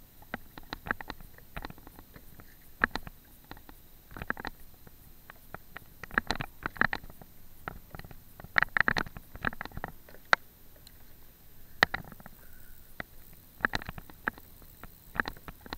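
Irregular clicks and knocks from fishing tackle and the plastic kayak being handled while a fish is reeled in, some single and some in quick clusters.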